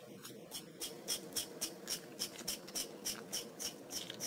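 Small die-cast toy train cars being pushed across a printed play mat, their wheels making a faint scratchy ticking that repeats about four times a second.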